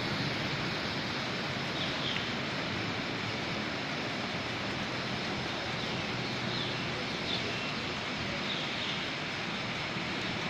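Steady hiss of rain falling over a flooded street, even and unchanging, with a few faint short high chirps scattered through it.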